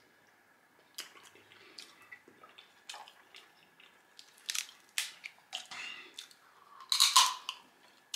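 A crab shell being cracked and pulled apart by hand close to the microphone: scattered wet clicks and crackles, with the loudest crunch about seven seconds in.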